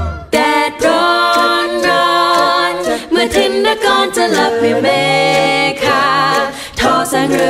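A cappella vocal group singing in close harmony, the voices holding long notes with vibrato; a low bass voice comes in about four and a half seconds in.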